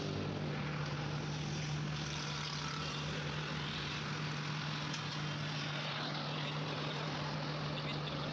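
Steady machine hum with a hiss, unchanging throughout.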